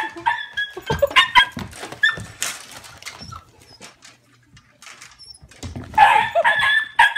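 Small dog giving repeated short, high-pitched yelps and whines, with a louder run of cries near the end and a few knocks between them.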